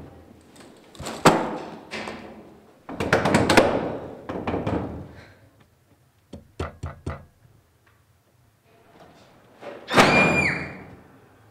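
Fist knocking and banging on a classroom door with a wired-glass panel: scattered heavy thuds, a quick run of three knocks midway, and one loud bang near the end that leaves a brief ringing tone.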